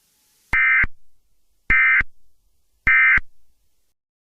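Emergency Alert System end-of-message code: three short, identical bursts of SAME digital data tones, about a second and a quarter apart, signalling that the alert message is over.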